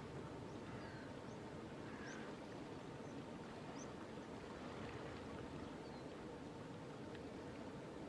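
Faint outdoor ambience: a steady low rushing noise, with brief high bird chirps scattered through it about once a second.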